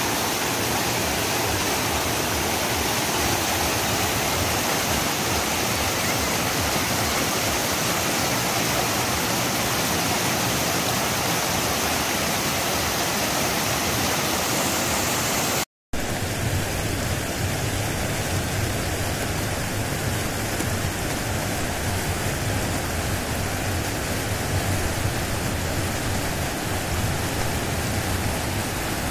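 Shallow, boulder-strewn mountain river rushing through rapids, a steady noise of white water. A little past halfway it drops out for a split second and comes back with a deeper rumble.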